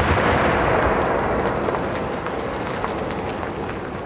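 Rolling echo of a large aerial firework shell's burst, a dense rumble that fades steadily over about four seconds.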